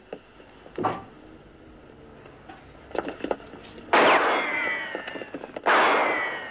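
Two handgun shots about a second and a half apart, each sudden and loud with a long ringing tail that slides down in pitch. A few fainter knocks come before them.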